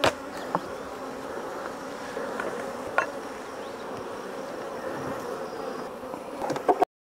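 A swarm of honeybees buzzing steadily over an opened hive box. A few sharp knocks and clicks of the wooden frames being handled stand out, the loudest at the start and near the end.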